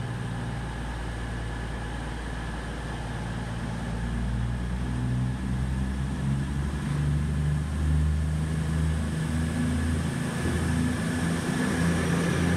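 Virgin Voyager diesel multiple unit running slowly along the platform, its underfloor diesel engines giving a steady low hum with a steady high whine above it. The sound grows louder from a few seconds in as the cab and first coaches come alongside.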